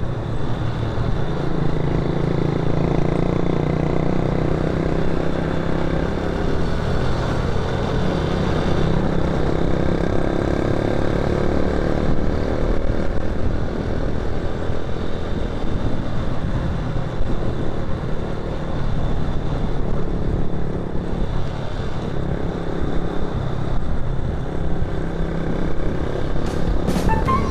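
Motorcycle running steadily on the road, its engine under road and traffic noise.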